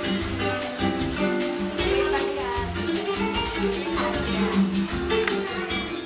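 Background music with a steady beat, fading out near the end.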